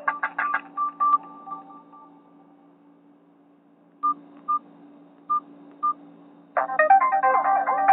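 Nokia 216 phone speaker: a ringtone's last notes die away, then four short keypad beeps sound, and about six and a half seconds in a new ringtone melody starts abruptly. A low steady hum sits under it all.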